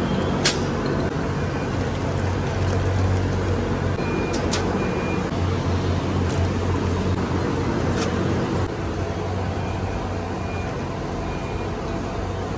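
Supermarket ambience: a steady low hum and rumble of store noise, with a few sharp clicks and knocks from handling the cart and packages. Faint short high beeps come a few times.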